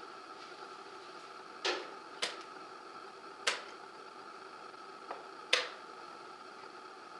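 Sharp wooden clacks of fast chess play: pieces set down on a wooden board and the chess clock pressed. There are four loud clacks, the first two close together, and a fainter one just before the last, over a steady faint hum.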